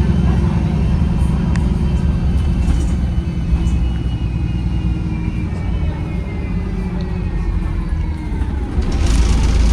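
Bus engine and drivetrain from the back seat: a steady low rumble with a faint whine that slowly falls in pitch as the bus slows. Near the end a loud hiss comes in.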